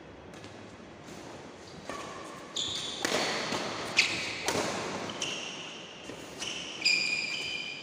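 Badminton rally: a quieter first two seconds, then about eight sharp racket strikes on the shuttlecock, with a loud overhead hit about four seconds in. Short high-pitched squeals follow many of the hits, typical of players' shoes on the court mat.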